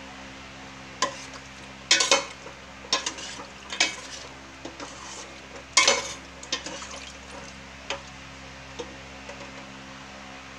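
Metal spoon stirring chicken pieces in sauce in a stainless steel pot, with irregular scrapes and clinks against the pot, loudest about two and six seconds in, over a steady low hum.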